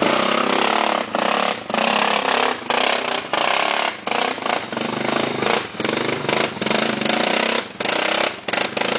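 ATV engine revving in short bursts of throttle with brief drops between, as the quad crawls and climbs over rocks and logs.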